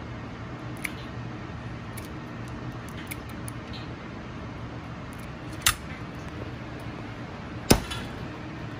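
Kitchen scissors snipping a raw lobster tail's shell, a few light clicks, then a sharp snap about halfway through; near the end a Chinese cleaver strikes the cutting board once with a loud chop. A steady low hum runs underneath.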